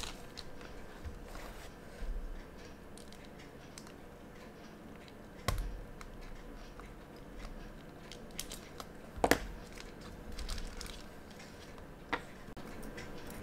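Thin clear plastic sheet crinkling as it is handled over a quartz watch dial, with small tool clicks from lifting off the hands. Three sharper clicks stand out, the loudest about nine seconds in.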